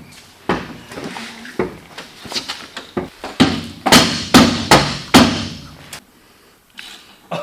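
A series of sharp metal knocks from a tool striking parts of an old truck: a few light knocks, then about six hard, ringing blows in quick succession a little past the middle.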